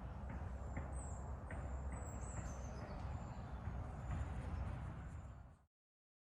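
Woodland ambience: a steady low rumble on the phone's microphone with faint, high bird chirps that drop in pitch, a few times, and some soft ticks. It cuts off abruptly near the end.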